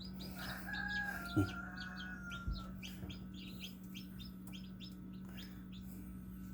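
Newly hatched chicks peeping, many short high peeps in quick succession throughout, over a steady low hum. A longer, lower, drawn-out call sounds in the first couple of seconds, with a single soft knock in the middle of it.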